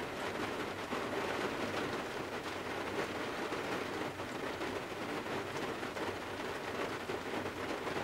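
Steady rain falling on the roof and windows of a Toyota 4Runner, heard from inside the back of the vehicle: an even hiss with many small drop ticks.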